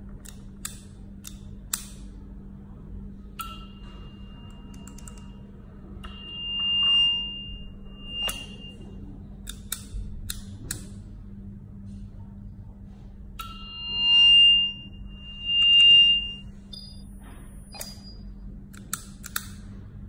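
Sharp little clicks of an electric strike lock's latch being pushed by hand, and a high electronic tone on one pitch that swells up and dies away several times, loudest of all, over a steady low hum.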